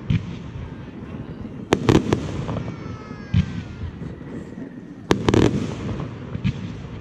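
Fireworks display: clusters of rapid sharp bangs and crackles about two seconds in and again about five seconds in, with single bangs between and a faint falling whistle in the middle.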